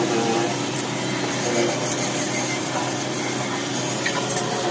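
Belt-driven buffing wheel spinning steadily while a steel AK receiver is pressed against it, a continuous rubbing whirr of metal being polished.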